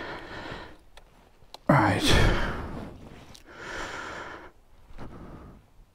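A man breathing out heavily and sighing four times close to the microphone. The loudest is a voiced sigh about two seconds in.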